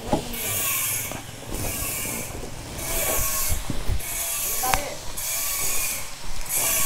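Cicadas buzzing in high pulses that swell and fade a little more than once a second, over a low rumble.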